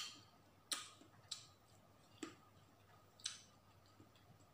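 Kitchen knife cutting pieces out of a watermelon: five short, sharp clicks spaced irregularly about a second apart, each dying away quickly.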